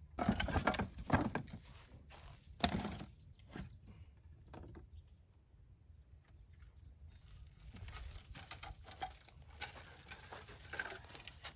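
Irregular knocks, clicks and rustling from the wooden parts of a top bar beehive being handled, densest in the first few seconds with one sharp knock about three seconds in, then scattered clicks near the end.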